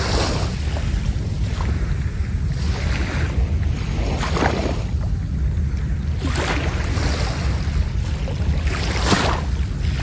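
Small sea waves breaking and washing up a sand beach, several separate washes each swelling and fading over a second or so, over a steady low rumble of wind on the microphone.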